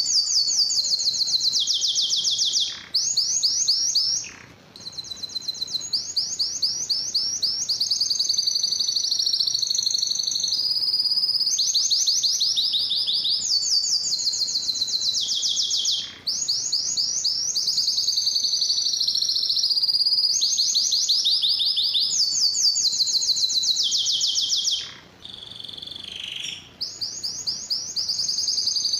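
Male domestic canary singing: long phrases of rapid trills of repeated high notes, some sliding down in pitch, broken by a few short pauses.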